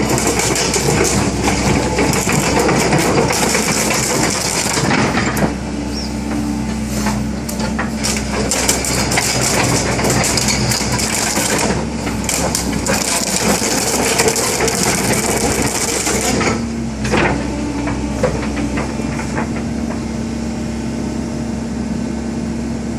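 Sumitomo SH120A1 hydraulic excavator's diesel engine running steadily. A loud stretch of hissing and clattering fills the first five seconds and comes back between about twelve and sixteen seconds in.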